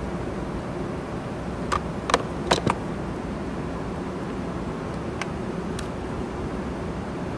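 A hard plastic dial caliper case being shut: four sharp clicks and knocks close together about two seconds in, then two lighter clicks a few seconds later as a second caliper case is handled, over a steady background hum.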